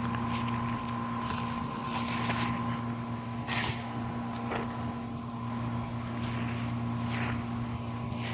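A steady motor hum runs throughout. Over it come several brief rustles of hands sifting through loose potting soil.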